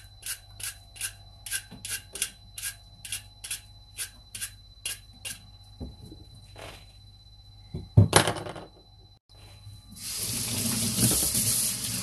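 Vegetable peeler scraping down a raw carrot in quick, even strokes, about three a second, slowing to a few last strokes. A sharp knock about eight seconds in, then a tap running steadily from about ten seconds.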